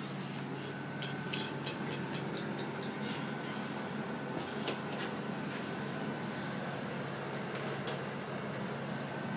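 Steady hum of refrigeration machinery, the compressors and fans of the cellar's wine fridges and cooling unit, with a faint high whine over it and scattered light clicks.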